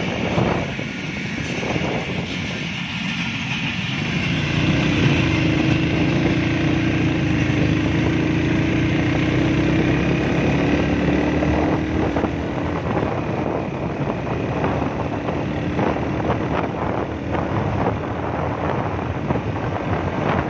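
Suzuki 100 motorcycle engine running steadily while riding, with wind buffeting the microphone. A steady engine note comes in about four seconds in and fades out again about two-thirds of the way through.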